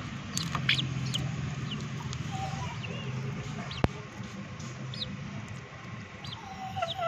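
Chickens pecking cooked rice from a steel bowl, with soft taps and scattered short, high chirps, and one sharp click about four seconds in.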